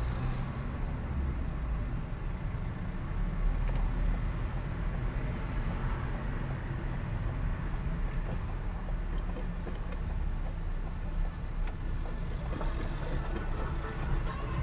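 A car driving, heard from a dashcam inside the cabin: a steady low rumble of engine and road noise.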